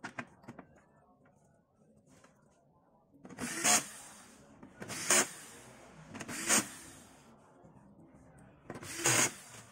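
Screwdriver driving screws into the metal chassis of an LCD TV. Four short bursts of noise, each building to a sharp peak, come about a second and a half apart, after a few faint clicks.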